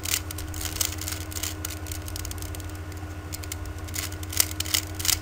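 Rubik's cube being turned, its plastic layers clicking and clacking in quick, irregular bursts, over a steady low electrical hum.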